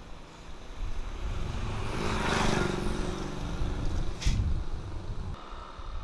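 A motor vehicle passes by, its engine sound swelling to a peak about two and a half seconds in and then fading. A short sharp knock comes about four seconds in.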